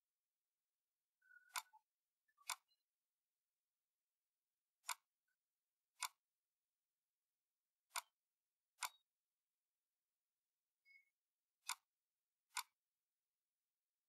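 Computer mouse button clicking, eight short sharp clicks in four pairs, each pair about a second apart, over near silence.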